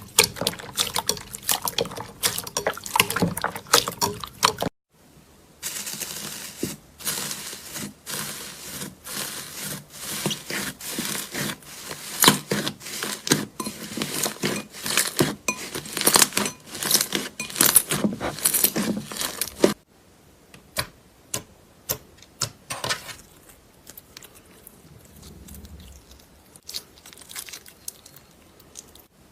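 Slime being squeezed, pressed and stretched by hand: a dense run of wet clicks, pops and crackles. It breaks off briefly about five seconds in, and from about twenty seconds in the clicks come sparser and quieter.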